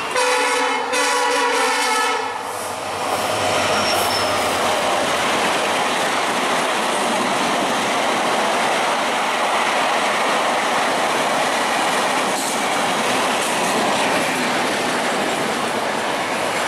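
A WDP4 diesel locomotive's multi-tone horn sounds for about the first two and a half seconds. Then the Shatabdi Express coaches rush past at speed, with a steady loud rail noise and wheel clatter.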